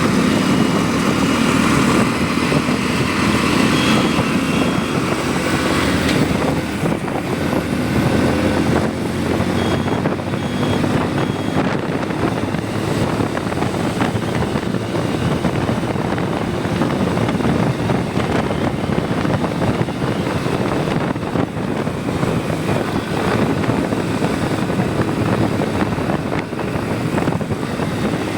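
Motorcycle running steadily while riding, its engine hum mixed with road and wind noise, with brief faint high beeps about four seconds in and again around ten seconds.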